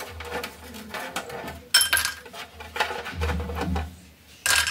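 Ice cubes dropped into a glass, clinking: a few sharp clinks with a brief ring. The loudest come about two seconds in and near the end, with lighter clicks between.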